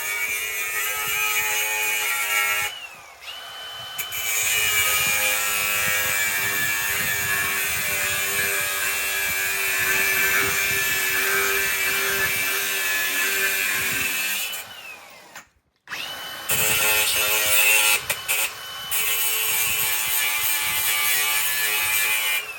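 Handheld electric power tool running at high speed in three long runs. It winds down and restarts about three seconds in, then winds down again near the middle and stops briefly before starting up once more.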